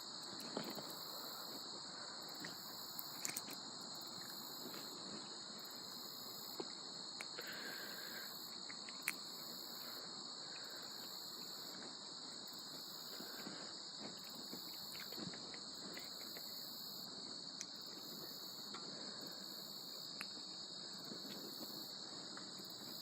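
Steady high trilling of an insect chorus, pulsing evenly, with a few faint clicks and taps scattered through it.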